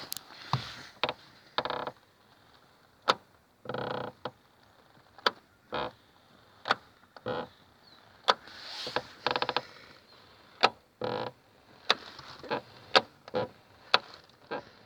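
Rattling and knocking from a loose, unscrewed part inside a VAZ-2110 car door: irregular sharp knocks, with a few short bursts of fast rattling. The loose part shakes back and forth, the cause of the knock heard from the door over bumps.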